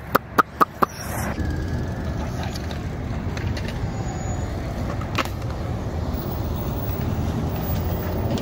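BMX bike tyres rolling over skatepark concrete, a steady low rumble. Four sharp clicks come close together in the first second.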